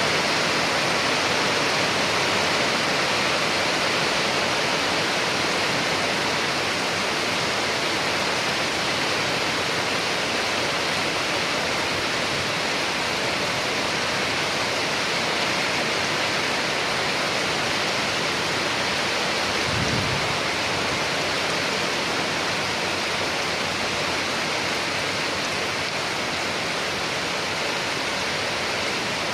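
Rain falling steadily as an even, continuous hiss. About two-thirds of the way in there is a brief low thump.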